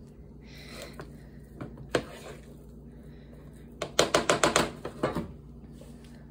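A metal serving spoon knocking against a dish to shake off sticky mashed potato: a couple of single knocks, then a quick run of about eight knocks about four seconds in.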